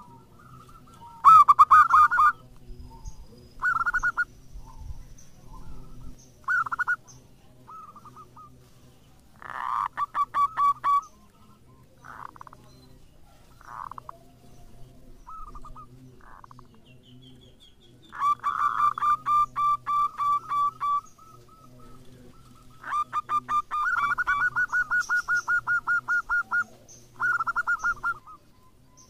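Zebra dove (local perkutut) singing: repeated bursts of quick staccato cooing notes, with longer runs of rapid coos about ten seconds in, around twenty seconds, and from about twenty-three to twenty-six seconds.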